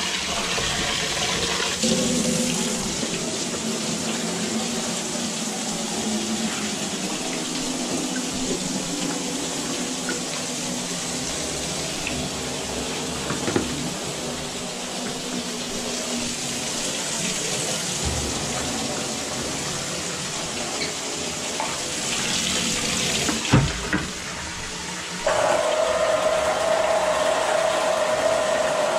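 Water running steadily from a faucet down the drain. A knock comes late on. Then the Electric Eel Model C drain cleaning machine's electric motor starts and runs with a steady hum.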